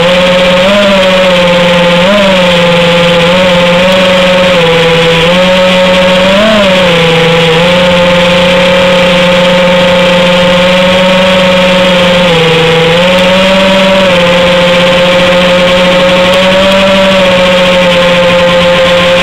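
FPV racing quadcopter's motors and propellers, heard from on board, running at a steady pitch with several brief rises as the throttle is blipped.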